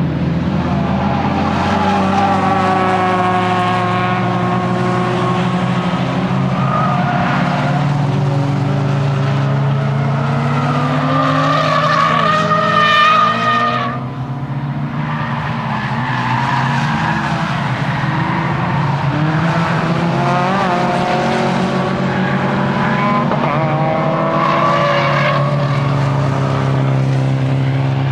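Tuned Nissan S15 Silvia's engine being driven hard on a circuit lap, revs climbing and falling through the gears. About halfway through the revs drop sharply as the driver lifts off, then build again.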